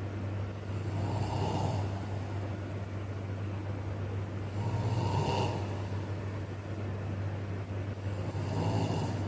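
A person snoring, three snores about four seconds apart, over a steady low hum.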